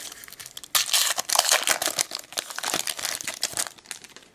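Wrapper of a 2007 Upper Deck SP Rookie Edition baseball card pack being handled and torn open: many quick, dense crackles for about three seconds, fading out near the end.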